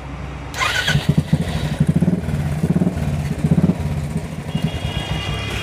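Royal Enfield Bullet 350's single-cylinder engine running, its revs rising and falling several times as the throttle is opened from about half a second in.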